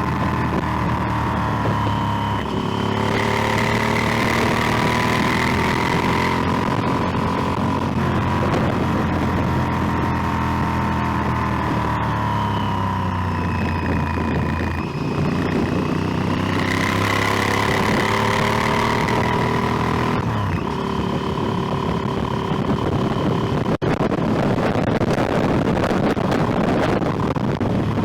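Motorcycle engine running on the move. Its pitch steps and swings up and down several times as the throttle and gears change. The sound drops out for an instant about 24 seconds in.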